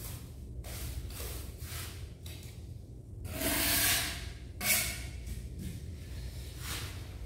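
Short scraping strokes of a trowel working sand-and-cement mortar over a steady low hum, with a loud breathy exhale about three and a half seconds in and a brief sharp sound just after it.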